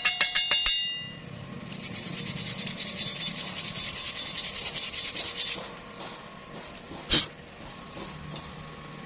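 Metalwork sounds: a quick run of ringing metal clinks at the start, then about four seconds of rapid scraping like filing, and a single sharp knock about seven seconds in.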